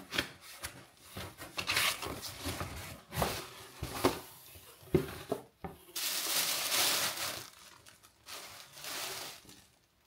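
A cardboard parcel being opened by hand: sharp tearing and crackling of packing tape and box flaps, then a longer spell of wrapping crinkling about six seconds in as clothes are pulled out of the box.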